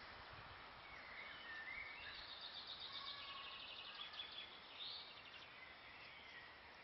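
Faint birdsong over a steady outdoor background hiss: a few high chirps and rapid trills from small birds, clustered between about one and five seconds in.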